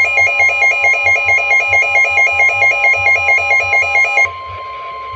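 Weather radio alert: a fast, loud warbling alarm, about six pulses a second, over a steady tone of about 1 kHz, the NOAA Weather Radio 1050 Hz warning alert tone. About four seconds in the warble stops suddenly and the steady tone goes on alone. Together they mark an incoming warning, here a flood warning.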